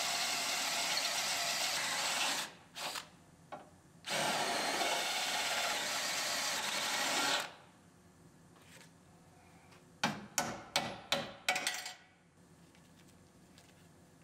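Power drill boring out spot welds in a car's steel frame rail, in two steady runs of a few seconds each with a short break between. Near the end come about five sharp knocks in quick succession.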